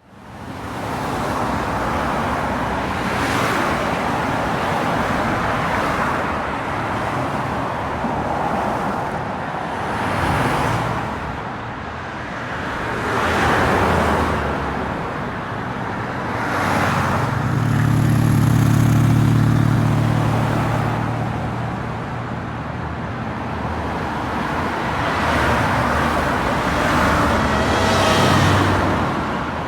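Busy road traffic: a steady wash of tyre and engine noise with cars passing one after another. From about 17 to 21 seconds a heavier vehicle's low engine drone is the loudest sound.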